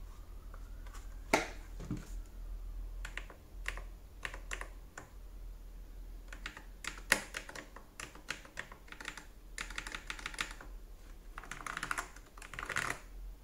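Keystrokes on a MonsGeek MG75S HE Hall Effect keyboard with Kailh Sakura Pink magnetic switches and PBT keycaps. Scattered single presses, then quick runs of typing in the last few seconds.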